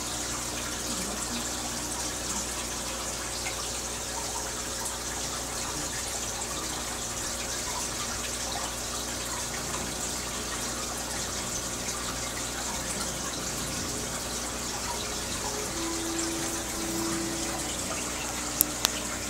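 Steady rushing and splashing of aquarium water churned by the tank's filter outflow and rising bubbles at the surface, with two sharp clicks near the end.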